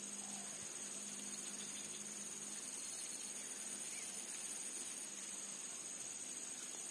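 A steady, high-pitched chorus of insects trilling continuously.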